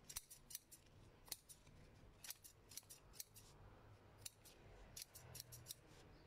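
Hand scissors snipping leaves and stems off a garden plant: a run of short, sharp snips at an irregular pace, often two in quick succession.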